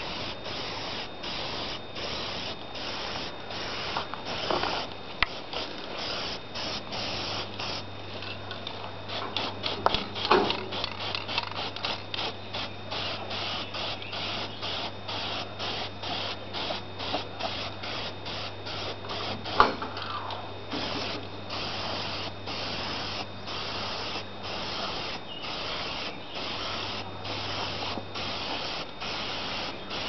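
Aerosol spray paint can hissing in a rapid series of short bursts as paint is sprayed onto sheet-metal tractor side panels, with a few sharper clicks in between.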